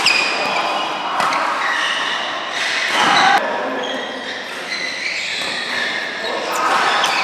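Doubles badminton rally: several sharp racket strikes on the shuttlecock, about a second or more apart, with shoes squeaking on the synthetic court, echoing in a large sports hall.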